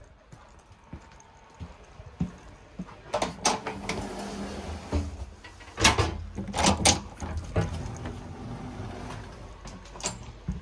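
Passenger railway coach end doors and handle clunking open and shut between coaches, with a few sharp knocks about a third of the way in and a cluster of louder clacks past the middle. A steady hum and hiss rises between the door sounds.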